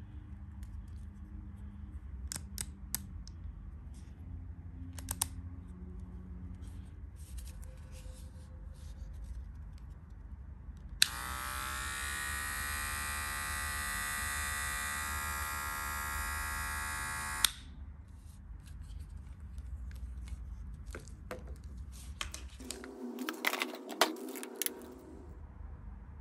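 Moser Neo electric hair clipper switched on with a click about eleven seconds in, its motor and blade running steadily for about six seconds before it is switched off with a click. Light handling clicks and taps come before it, and a short cluster of knocks near the end as the clipper is handled and set down.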